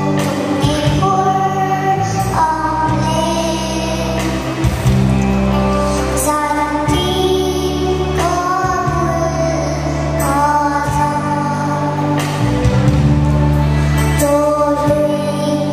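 A young boy singing a church solo into a microphone over instrumental accompaniment, with notes held about a second at a time.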